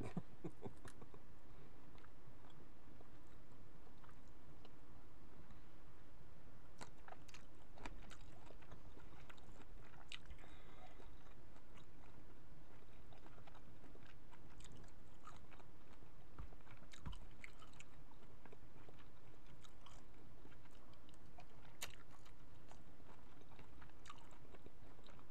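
A person biting and chewing cooked jumbo shrimp, with scattered small clicks and mouth sounds.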